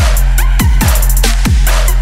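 Electronic dance music with a heavy beat: punchy kick drums over a steady deep bass and fast hi-hats.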